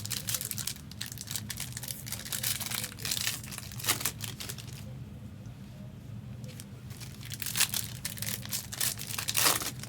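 Trading card pack wrappers from 2023 Panini Donruss Elite WWE packs being torn open and crinkled, in bursts of crackling with short pauses between.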